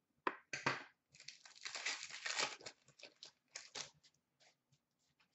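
Trading cards being handled and slid against each other at a counter: a dense papery rustle lasting about a second and a half, then a few light clicks.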